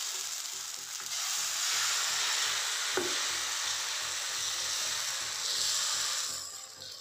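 Mung bean dosa batter sizzling on a hot dosa griddle as a ladle spreads it out in circles. The hiss swells about a second in and dies away near the end.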